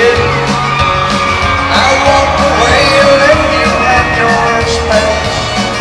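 Live arena concert music, recorded from the crowd: a man singing over a country band with a steady beat, while fans scream.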